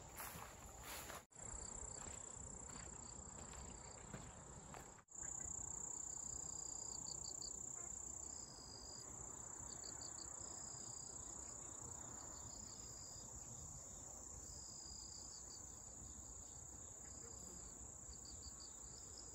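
Crickets and other insects calling: a steady high-pitched trill, joined about five seconds in by short pulsed chirps that repeat every second or two.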